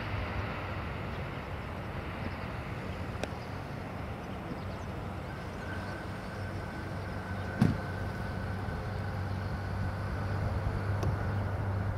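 Airbus A380's four Rolls-Royce Trent 970 engines making a steady low rumble and hum as the airliner rolls out on the wet runway after touchdown, with a faint thin whine coming in about halfway. A single sharp knock sounds about two-thirds of the way in.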